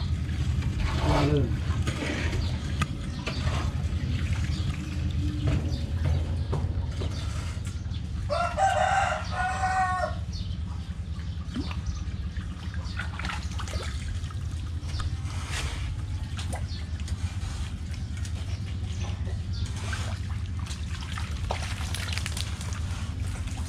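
A rooster crows once, about eight seconds in, in a stepped call lasting about two seconds. Underneath are a steady low rumble and scattered small knocks and splashes in shallow water.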